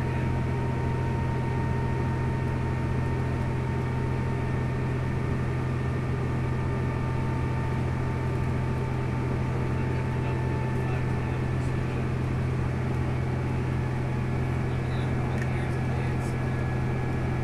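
Cabin noise of a New Flyer DE60LFR hybrid articulated bus at freeway speed: a steady low drone from its Cummins ISL9 diesel and drivetrain, with road noise and a faint high whine that fades about ten seconds in.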